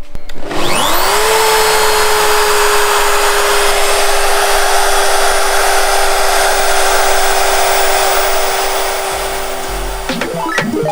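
SmartBench CNC router's spindle motor starting up together with its dust-extraction vacuum: a whine climbs to full speed in about a second, then runs steadily over a loud rushing hiss. Guitar music comes in near the end.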